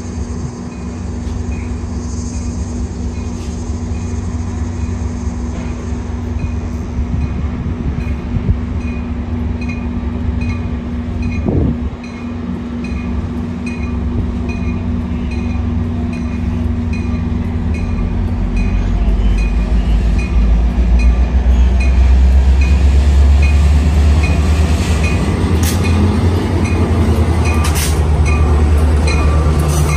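Metra MP36PH-3S diesel locomotive No. 404 running light, its diesel engine rumbling steadily and growing louder over the last third as it draws near and passes. Its bell rings at an even pace throughout, and there are a few sharp clicks from the wheels near the end.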